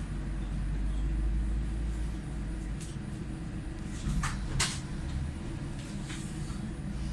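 Cabin ride noise inside a Belkommunmash BKM-60102 on the move: a steady low rumble, with two short sharp rattles or knocks a little after four seconds in.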